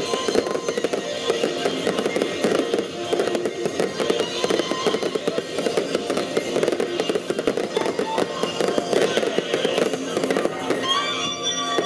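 Fireworks display: a dense, continuous crackle of bursting fireworks over music.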